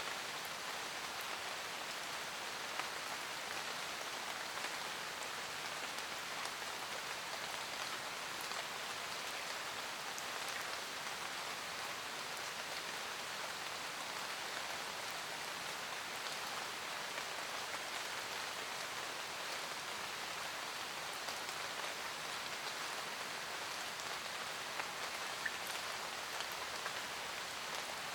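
Light rain falling steadily on forest leaves, an even patter with a few distinct drops ticking now and then.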